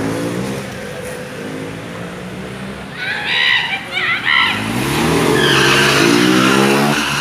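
Motorcycle engine revving during street stunt riding, with a tyre squealing on the asphalt as it skids about three to four seconds in, then the engine rising in pitch as it revs up again.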